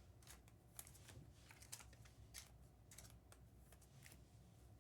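Near silence with faint, scattered light clicks and ticks, several a second.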